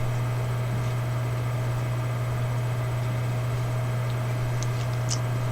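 A steady low hum with an even background hiss, unchanging throughout, and a couple of faint ticks near the end.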